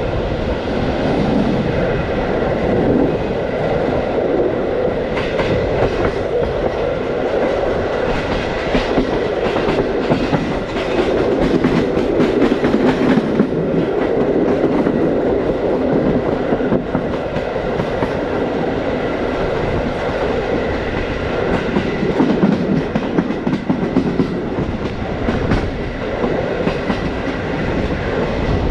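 Passenger train carriage running along the track, heard at its open window: a steady rumble of the wheels on the rails with irregular clicks and knocks as they pass over rail joints.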